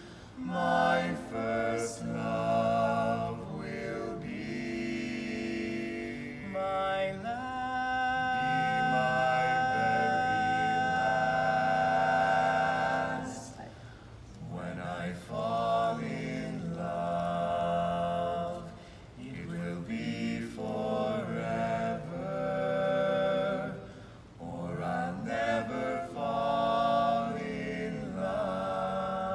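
Barbershop quartet of four male voices singing a cappella in close harmony, with a long held chord in the middle and short breaks between phrases.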